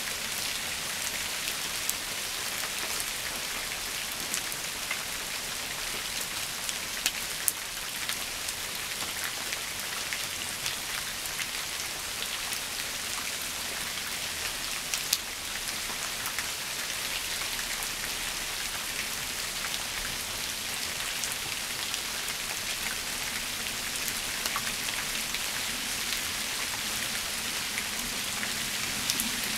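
Steady rain falling on shrubs and leaf-covered ground: an even hiss of many fine drop ticks, with a few louder single drops standing out.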